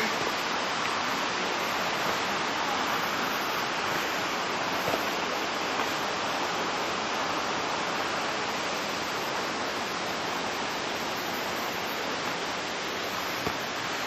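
Steady, even rush of falling water from a waterfall, unbroken throughout.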